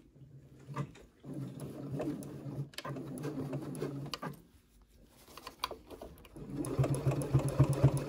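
Electric home sewing machine stitching in two runs: the first starts about a second in and lasts about three seconds, then after a short pause a second, louder run goes on to the end. It is top-stitching along a zipper, through the zipper tape and lining.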